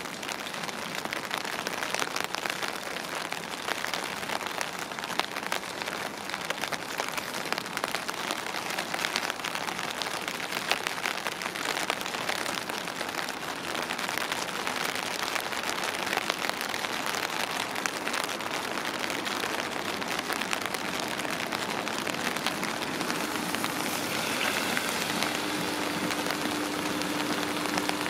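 Steady rain falling on hard surfaces, with many individual drops ticking close by. A steady low hum comes in near the end.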